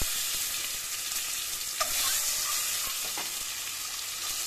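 Hard-boiled eggs frying in hot mustard oil in a steel kadai, with a steady sizzling hiss and an occasional faint tick of spattering oil.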